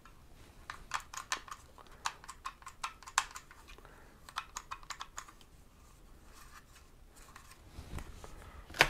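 Soft, irregular clicks and taps of a hard plastic cordless-tool battery pack handled and turned over in the hands, many small clicks over the first few seconds, then a quieter stretch and a louder clack near the end.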